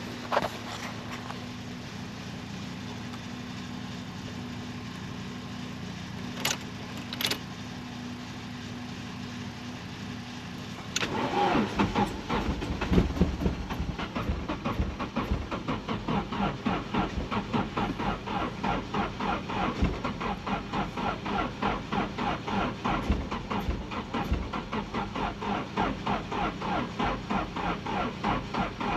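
A steady hum with two short clicks, then about eleven seconds in a Nissan 240SX's starter motor begins cranking the engine in an even pulsing rhythm and keeps cranking without the engine catching: a crank-but-no-start.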